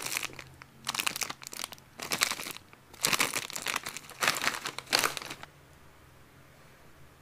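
Crinkly pet-snack packaging being handled, in about five short spells of crackling, that stops about five and a half seconds in.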